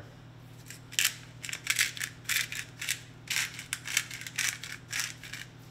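Twist-top black peppercorn grinder being turned over food, giving a run of short gritty cracking bursts, a few a second, as the peppercorns are crushed; it starts about a second in and stops just before the end.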